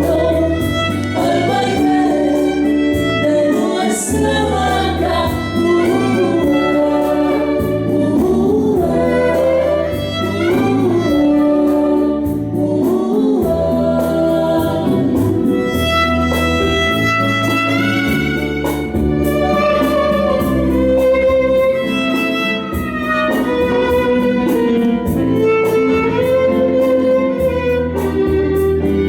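Bolero music: a violin carrying a wavering melody over a steady bass line.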